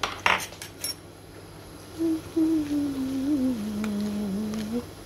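Metal kitchen utensils clink a few times against the mixing bowl in the first second, then a person hums a slowly falling, wavering tune.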